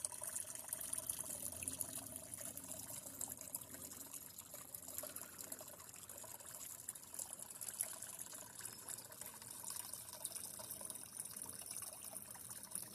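Garden pond waterfall trickling and splashing steadily as a faint, even rush of water.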